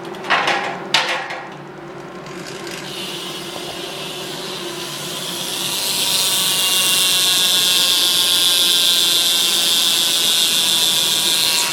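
Odyssey rear hub of a BMX bike buzzing as its freewheel ratchets while the rear wheel spins, a dense high buzz that grows louder about halfway through and cuts off suddenly at the end. Two sharp knocks about a second apart come first.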